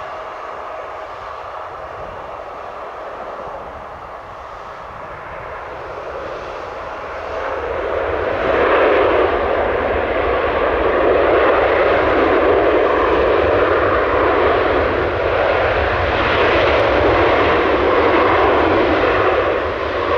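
Airbus A350 airliner's Rolls-Royce Trent XWB turbofan engines running at high power on the runway, a steady jet roar that swells sharply about eight seconds in and stays loud.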